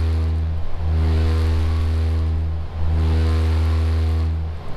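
Water-filled subwoofer playing an 80 Hz test tone: a loud, steady low hum with a row of overtones above it. It dips briefly twice and stops just before the end.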